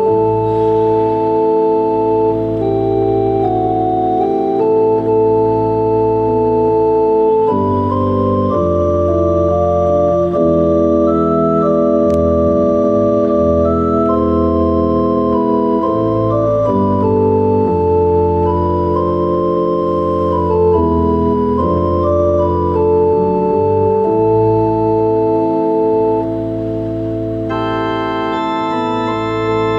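Church pipe organ playing slow, sustained chords over a deep held bass, the chords changing every few seconds. Near the end a brighter, higher-pitched registration comes in on top.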